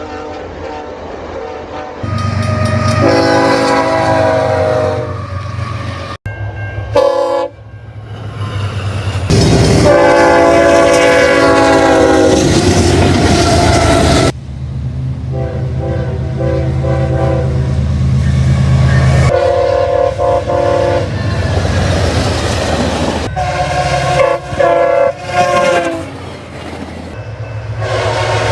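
Train horns sounding in a string of short clips, each a steady chord of several tones lasting a few seconds, over the low rumble of locomotive engines. The clips change abruptly one after another.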